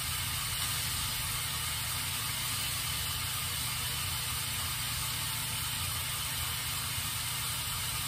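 K'nex roller coaster model's motor-driven chain lifts running steadily, a continuous mechanical whir with a low hum underneath.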